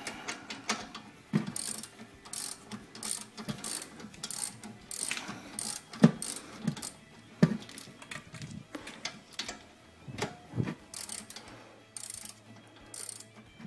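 A socket ratchet clicking in short back-and-forth strokes as it runs in the brake caliper bolts, snugging them up without full tightening. A few duller knocks come in among the clicks.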